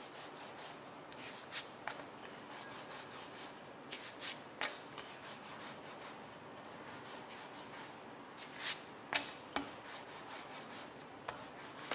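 Wooden rolling pin rolled back and forth over dough on a silicone baking mat: a steady soft rubbing, scraping sound with a few light knocks.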